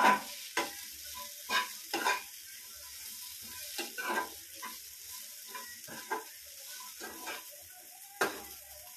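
Cauliflower pieces frying in a pan with a steady sizzle, while a slotted spatula stirs the pieces and scrapes against the pan in irregular strokes.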